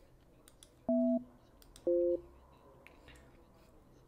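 Phone keypad tones as a number is dialed: two short two-tone beeps about a second apart, each a different pair of pitches, with faint clicks between.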